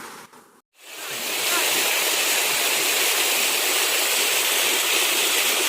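Steady rush of flowing river water, an even hiss without rhythm, starting about a second in after a brief silent break.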